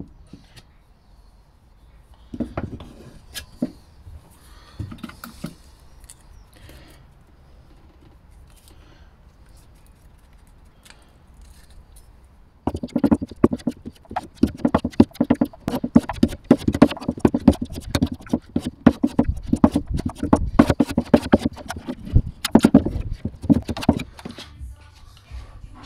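A spreader scraping and slapping two-part body filler back and forth on a wooden board, mixing in the hardener in quick repeated strokes for the second half. Earlier come a few separate knocks and scrapes as filler is scooped out of the tin onto the board.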